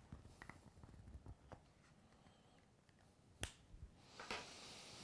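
Near silence in a small room, with faint rustles and light clicks from sheets of paper being handled and turned. There is one sharper click about three and a half seconds in, and a soft rustle near the end.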